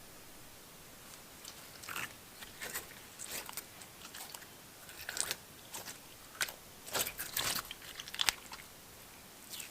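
Slime being handled, squeezed and poked by hand, giving irregular sticky crackles and pops that come thickest in the second half.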